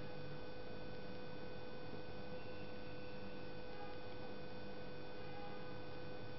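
A steady electrical hum with a few thin, high, steady tones over a hiss, cutting off at the end.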